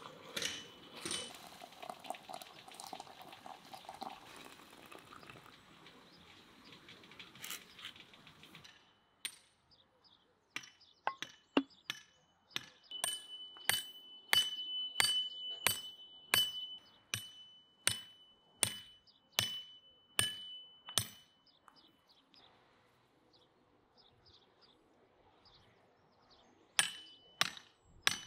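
Water running from a samovar tap into a glass teapot. It is followed by a hammer driving wooden stakes into the ground, a steady run of sharp blows about one and a half a second. The blows pause for a few seconds and start again near the end.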